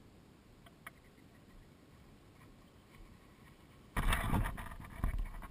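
Near silence with a faint click about a second in. About four seconds in, a loud, rumbling rush starts suddenly: the Gaui 500X quadcopter's electric motors and propellers running, heard through the GoPro mounted on its frame.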